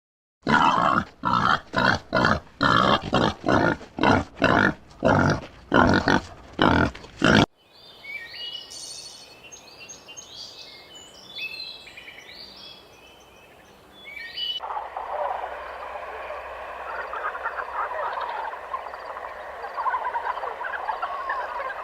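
A rapid run of short, loud animal grunts, about two a second for some seven seconds, stops suddenly. Quieter high bird chirping follows, and then, from about halfway through, a dense steady chatter of many small calls.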